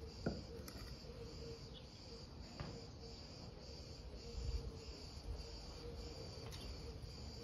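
Insects chirping steadily outdoors, a high trill that pulses evenly a few times a second. A couple of soft knocks cut through it, the first just after the start.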